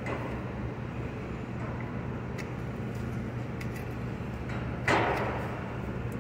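Gloved hand working moly grease into a front drive axle's hub splines, mostly quiet handling over a steady low hum, with one short scuffing rustle about five seconds in.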